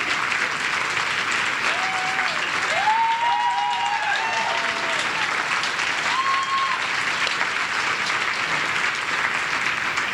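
Audience applauding steadily, with a few voices whooping about two to four seconds in and again around six seconds.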